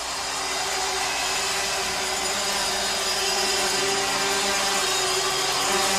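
Steady hockey-arena din just after a goal, an even wash of noise with a few faint held tones underneath.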